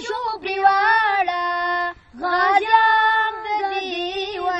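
Two boys singing a Pashto song together, unaccompanied, in long held notes with ornamented wavers. They break off briefly about two seconds in, then go on.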